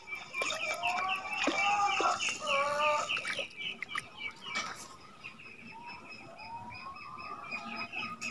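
Chickens clucking, with a small bird chirping rapidly over them. The clucking stops about three seconds in and the chirping carries on.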